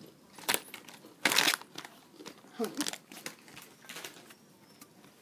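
Plastic crisp packet crinkling and rustling in several short bursts, the loudest and longest about a second and a half in.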